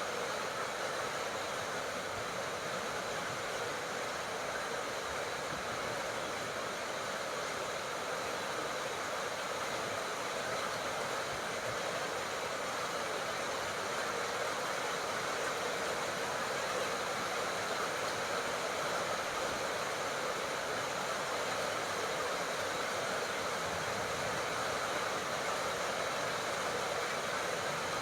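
Steady tropical rain: an even, unbroken hiss with no single drops, thunder or other events standing out.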